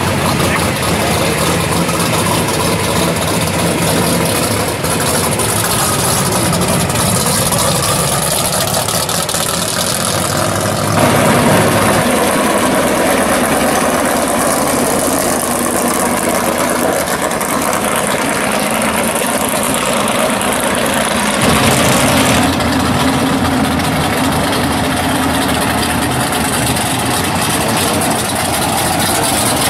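Drag-race car engines idling and running at low speed as the cars roll through the pits. The sound changes abruptly about 11 and 22 seconds in as a different car is heard.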